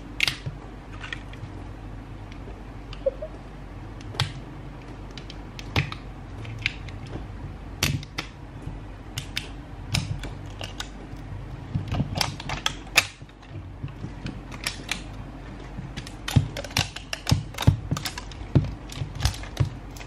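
Crinkling and crackling of the plastic wrap and tape being peeled off an L.O.L. Surprise ball: irregular sharp clicks that come thicker in the last few seconds.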